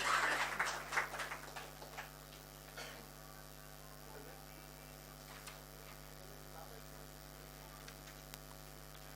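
Scattered clapping dies away over the first two seconds, leaving a steady electrical mains hum with a few faint ticks.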